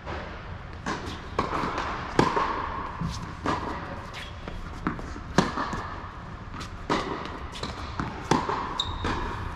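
Tennis balls struck by rackets and bouncing on an indoor hard court, a string of sharp hits and bounces echoing in the hall. The loudest hits come about two seconds and five and a half seconds in, and a short high squeak sounds near the end.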